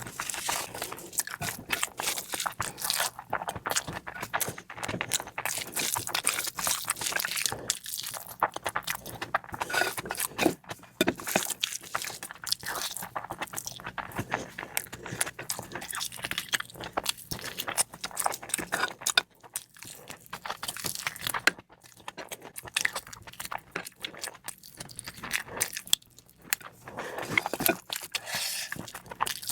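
Close-miked eating sounds: chewing with many quick, wet clicks and crunches. They thin out briefly about two-thirds of the way through.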